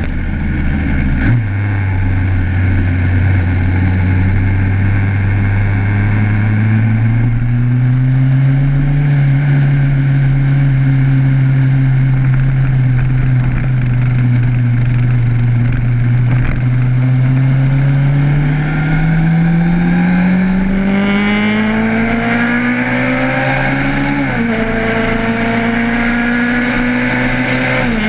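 Motorcycle engine running under way with wind and road noise. Its pitch climbs as the bike accelerates, holds, then climbs steadily again before dropping sharply with a gear change a few seconds before the end.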